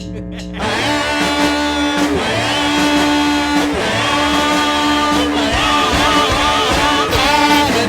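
Rock theme music with guitar, kicking in about half a second in.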